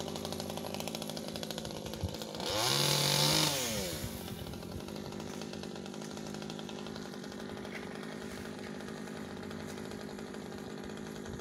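Ogawa 12-inch chainsaw engine running steadily, revved up hard about two and a half seconds in for a second and a half, then dropping back to a steady idle.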